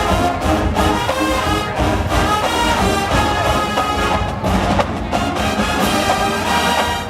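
Marching band playing, with brass and drums together.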